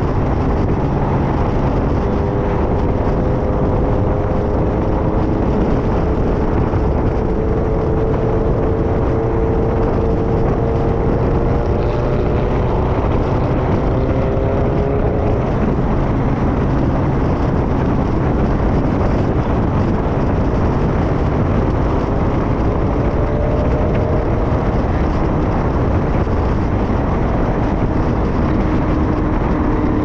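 A car cruising at highway speed: steady road and engine noise, with faint tones that drift slowly in pitch.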